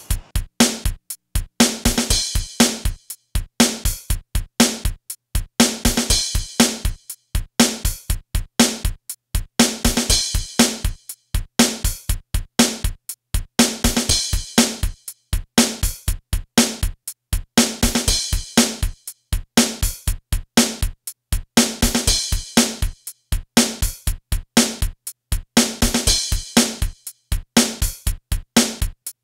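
Background music with a steady drum-machine beat.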